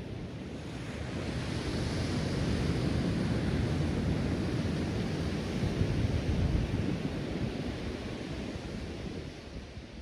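Ocean surf on a sandy beach: waves breaking and washing up the shore. The sound swells over the first few seconds, holds through the middle, and fades near the end.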